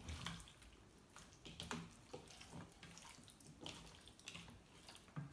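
Hands kneading raw chicken pieces in a wet spice-and-lemon marinade in a plastic bowl: faint, irregular wet squelches and soft clicks.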